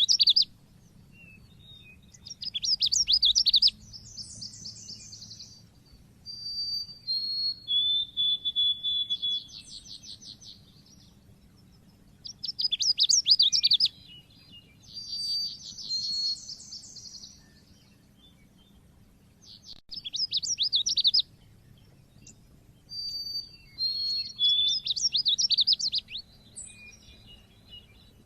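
White-eye (pleci) singing in the shrill 'cit keres' style: phrases of rapid chirps and quick up-and-down notes mixed with short whistled tones, coming every few seconds with brief pauses between.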